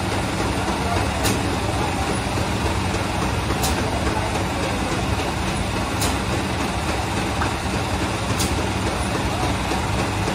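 Steady machine roar of bakery equipment with a low hum underneath, and a short sharp tick repeating about every two and a half seconds.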